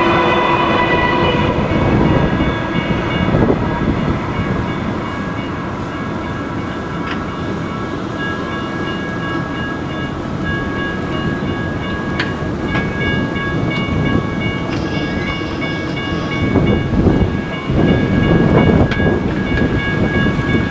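Railroad crossing warning bell sounding from the crossing's NOVAX DS100 speakers, a rapid pulsing electronic ding that keeps going as the gates rise. An RTD light rail train's hum fades away in the first second or two, and a car drives over the crossing near the end.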